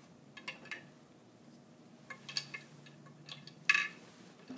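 Small glass test tubes clinking and tapping lightly as they are handled: a few soft clicks, a cluster of ringing clinks, then a sharper clink near the end.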